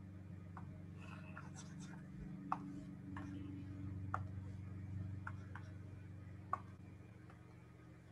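Faint, scattered clicks of a computer mouse or pen working an on-screen drawing toolbar, about seven over the stretch, with a little soft scratching about a second in, over a steady low electrical hum.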